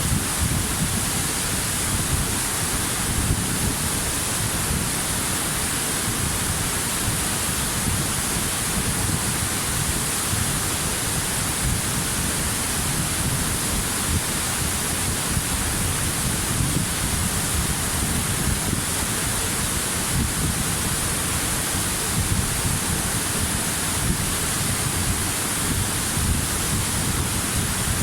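A waterfall: a steady, unbroken rush of falling water, a low rumble under a bright hiss.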